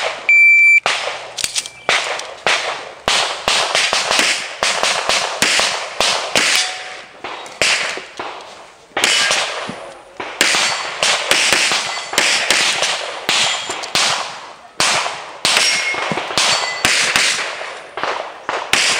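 An electronic shot timer gives one short high beep, the start signal. A competitor then fires a pistol in quick strings of shots, dozens in all, with short breaks about 8 and 15 seconds in.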